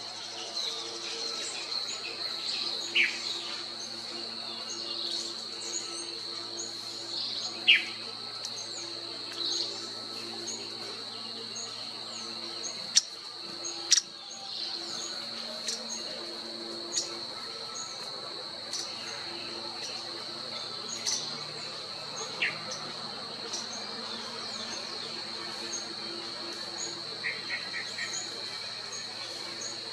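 Insect drone, steady and high-pitched, with small high chirps repeating throughout. Over it come a few sharp, quickly falling bird calls, two loud clicks a second apart near the middle, and a quick run of four chips near the end.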